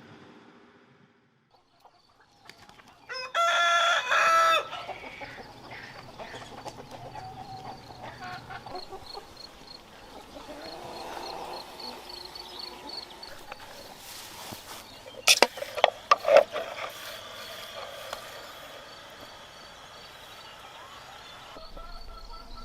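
Rooster crowing once, a few seconds in, with hens clucking around it. A faint, evenly repeated high chirp runs underneath, and a few short sharp sounds come about two thirds of the way through.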